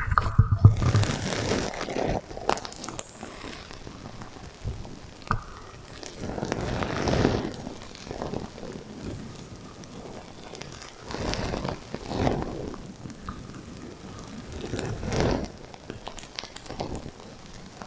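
Sequins on a sequin heart pillow rustling and crackling as they are rubbed, run through an echo effect. The rustle comes in four swells a few seconds apart.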